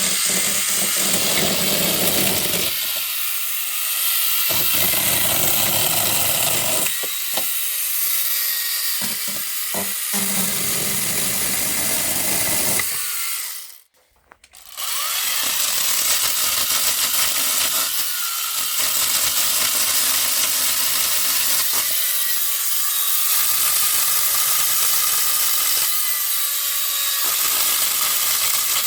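Parkside 40 V cordless pole chainsaw with a brushless motor running and cutting wood, its sound rising and falling several times as it works. About halfway through it stops for about a second, then starts again.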